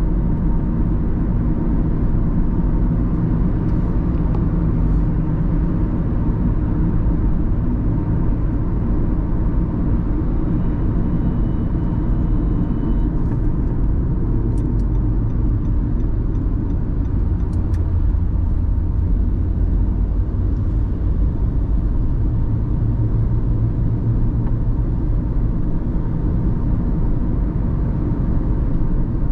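Car driving on a road: a steady low rumble of road and engine noise.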